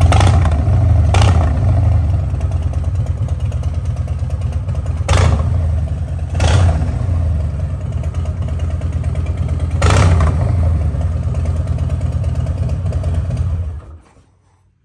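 A 2022 Harley-Davidson Heritage Classic's Milwaukee-Eight 114 V-twin idling, pretty loud, through seasoned TAB Performance exhaust with Zombie baffles. About five quick throttle blips rise above the idle, and the engine is switched off shortly before the end.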